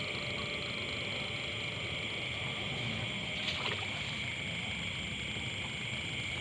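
Nighttime insect chorus, a steady high-pitched trill that does not change, over a low rumble of handling and wading, with a few faint clicks about halfway through.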